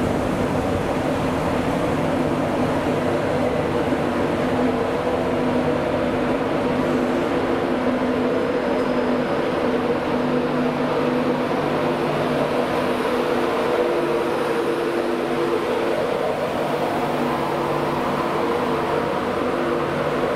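Diesel train engines idling steadily at a station, a constant hum made of several held tones over a rumble.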